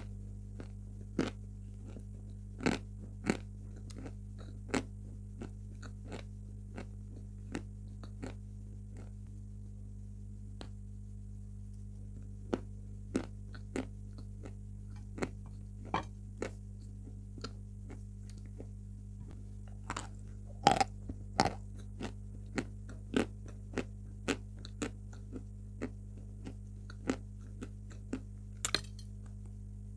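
White chalk being bitten and chewed: sharp, irregular crunches, a few seconds apart or closer. There is a quieter spell about ten seconds in, then a run of louder bites around twenty seconds in, over a steady low hum.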